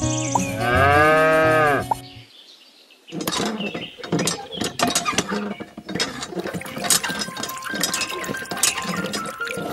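A cow moos once, a single drawn-out call rising and then falling in pitch, from about half a second to two seconds in. From about three seconds on, a small toy hand pump is worked, giving fast irregular clicking and clattering with thin squeaks.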